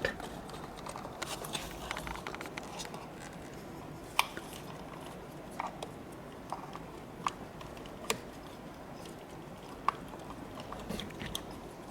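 Faint handling rustle with about half a dozen separate small clicks and taps, from plastic connector tabs and locks being worked loose behind a car's steering wheel.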